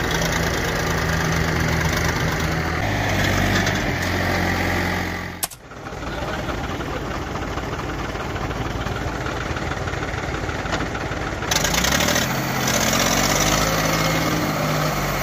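Diesel tractor engine running steadily, broken by a sharp click and a short drop in level about five and a half seconds in. Near the end an engine revs up, its pitch rising.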